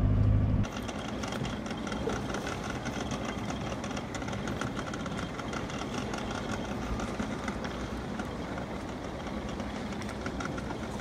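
A boat engine's steady low hum cuts off under a second in. A small outboard motor then runs steadily, with water splashing and wind noise around it.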